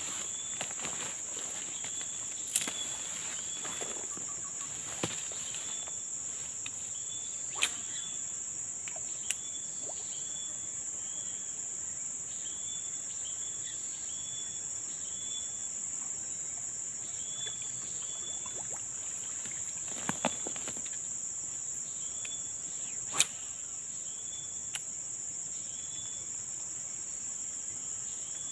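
Steady high-pitched drone of insects in tropical forest, with short chirps repeating over it and a few sharp clicks scattered through, the loudest about three-quarters of the way in.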